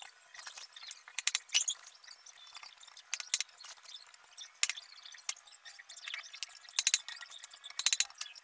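Light, sharp clinks and clicks of hard objects knocking together, in about six irregular clusters, the loudest about one and a half seconds in and near the end.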